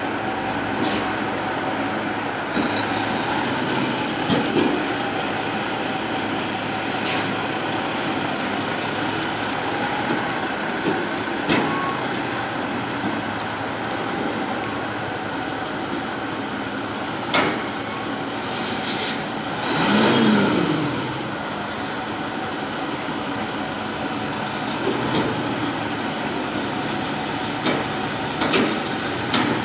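Semi-truck tractor's diesel engine running steadily as it maneuvers a container trailer, with a few sharp clicks and, about two-thirds through, a louder swell lasting a couple of seconds.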